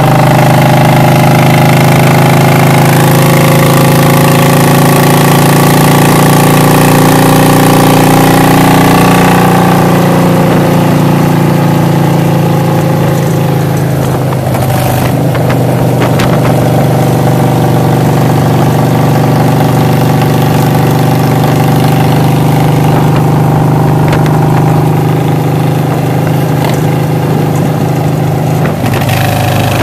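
Cruiser motorcycle engine running steadily at road speed, heard from the rider's seat.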